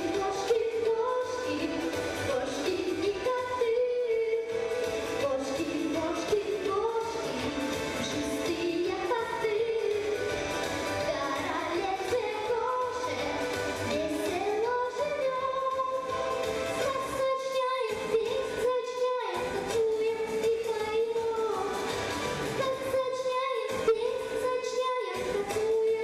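A young girl singing a song solo into a handheld microphone, amplified through the hall's PA, over instrumental accompaniment.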